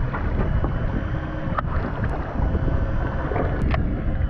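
Boat engine running steadily, with wind buffeting the microphone and a few faint clicks.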